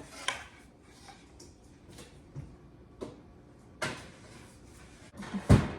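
Oven being opened and the loaf taken out: scattered knocks and clicks of the oven door and rack, then a heavy thump near the end.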